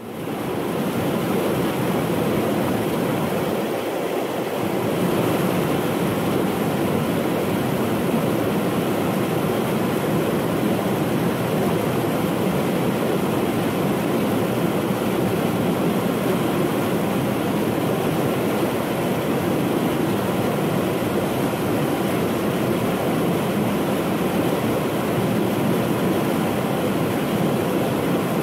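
Creek rapids below Cascade Falls rushing over rocks: a steady, even rush of water that fades in at the very start.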